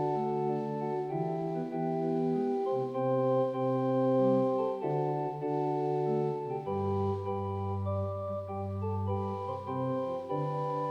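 Instrumental hymn accompaniment on a keyboard: held organ-like chords that change every second or so over a moving bass line, with no singing.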